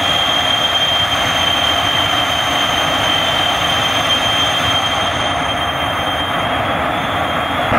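Jet engine of a jet-powered semi truck running hard while parked, flames shooting from its exhaust stacks: a loud, steady roar with a high whine that fades near the end.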